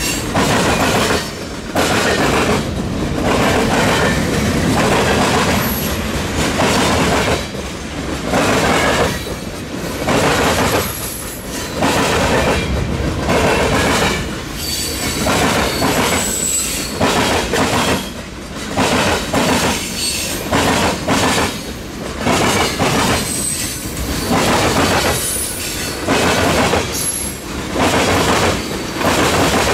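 Freight train cars rolling past: a steady loud rumble of steel wheels on rail that dips briefly every second or two, with short high-pitched wheel squeals now and then.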